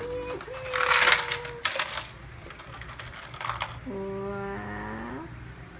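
Plastic shape-sorter toy house being handled and turned over, with the plastic shapes inside clattering and rattling loudly for about a second, then a shorter rattle a couple of seconds later.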